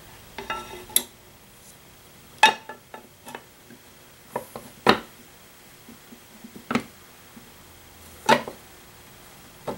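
Metal cover being fitted and seated onto a Servo 140 power feed housing: a string of sharp metallic knocks and clicks, about five louder ones spaced a second or two apart, with lighter rattling between.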